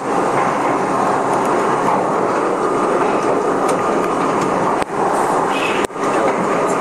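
R32 subway car running at speed through a tunnel, heard from inside the car: a steady loud rumble of wheels on rail with occasional light clicks. The noise cuts out for an instant twice near the end.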